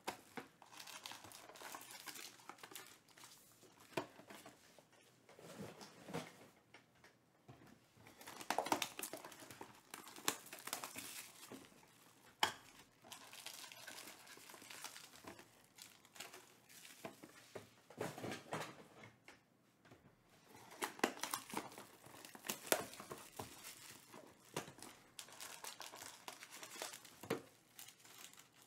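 Plastic and foil wrapping crinkling as a cardboard trading-card box is opened and its foil card packs are handled and stacked, in irregular crackly spells with sharp taps between them.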